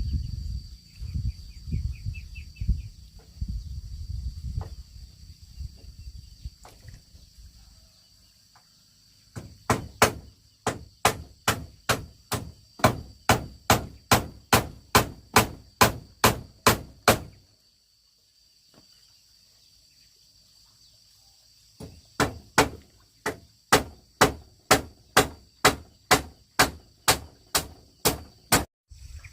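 Rhythmic chopping strikes, about three a second, in two long runs with a pause between, after some seconds of low rustling and handling noise. Insects trill steadily throughout.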